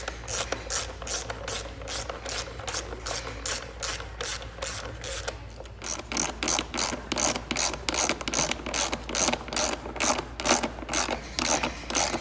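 Socket ratchet clicking in quick, even strokes, several clicks a second, as it drives a bolt home on a dirt bike's frame and exhaust mount. The clicking grows louder about halfway through.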